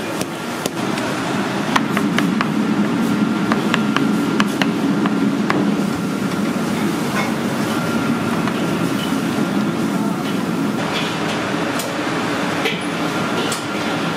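Commercial kitchen noise: a steady low hum with scattered sharp clicks and knocks of utensils and pans, thickest in the first few seconds and again near the end.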